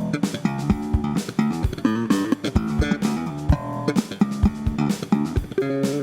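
Status Empathy electric bass played direct into GarageBand: a quick line of plucked notes with sharp, bright attacks.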